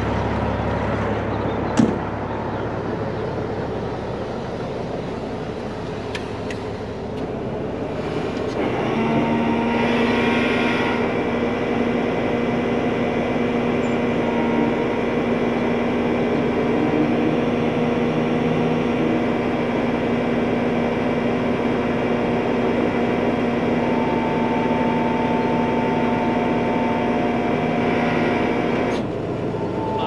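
Heavy wrecker truck's diesel engine running steadily, with a short knock about two seconds in. About nine seconds in it gets louder and a steady pitched hum comes in, held until just before the end, as the truck works its winch and boom.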